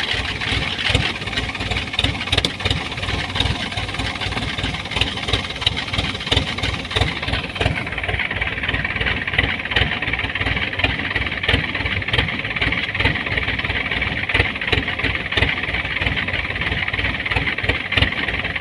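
Engine of rice-harvest field machinery running steadily, with a fast low chugging throughout. The higher hiss above it eases off about eight seconds in.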